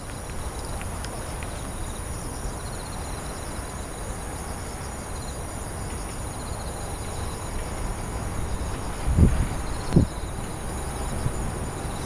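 Autumn night insects singing: a steady, high-pitched ring with repeated pulsed trills over it, over a low background rumble. Two short dull thumps come about nine and ten seconds in.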